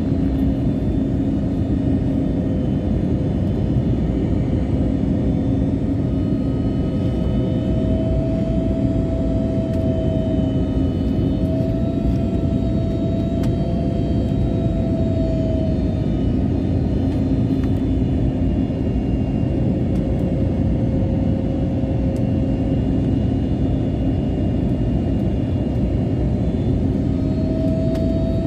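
Passenger airliner cabin noise: a steady rumble of engines and airflow with faint hum tones that drift slightly in pitch.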